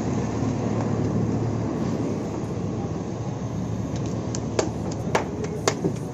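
Steady low roar of a roadside food stall, then a few sharp clinks and knocks in the last two seconds, like metal utensils being handled.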